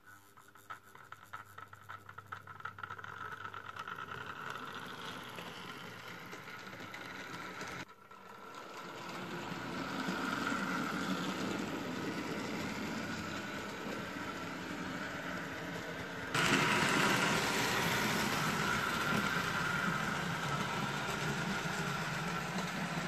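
Hornby OO-gauge model A4 Pacific locomotive pulling coaches along the track: a steady whirring of its electric motor and rolling wheels. It builds as the train pulls away, breaks off abruptly about 8 seconds in, then comes back and steps up louder about two-thirds of the way through.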